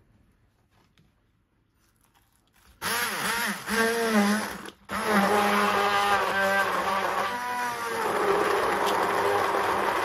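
Immersion blender switched on about three seconds in, its motor whine wavering in pitch as the blade chops chunks of carrot and onion in vinegar and oil. It cuts out for a moment, starts again and runs steadily, the sound smoothing out as the vegetables break down.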